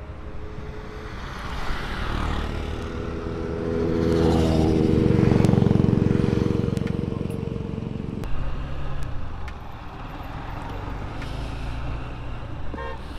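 A motor vehicle's engine running close by, swelling to its loudest about halfway through and cutting off suddenly about eight seconds in, then a lower engine hum.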